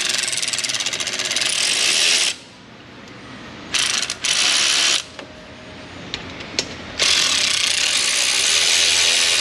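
Hand ratchet with a Torx T45 bit driving brake caliper guide-pin bolts, its pawl clicking rapidly in three spells: about two seconds at the start, about a second around four seconds in, and the last two and a half seconds.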